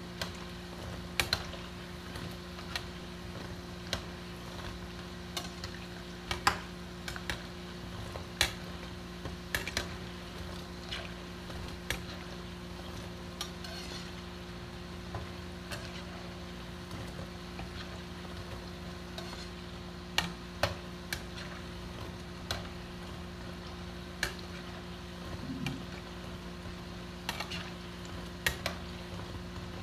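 Balls of gamat deep-frying in oil in a nonstick frying pan, a low sizzle, as a perforated metal skimmer stirs them, clinking and scraping against the pan at irregular moments. A steady low hum runs underneath.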